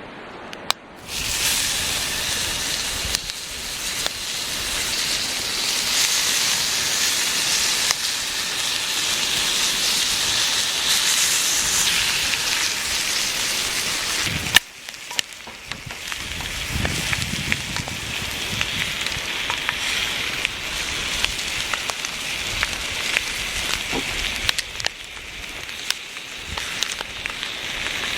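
Wood campfire burning with a steady hiss and scattered crackles, with one sharp click about halfway through.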